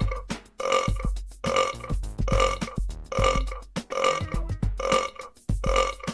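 A long run of loud belches, one about every 0.8 seconds, each sounding the same as the last, like a repeated burp sound effect.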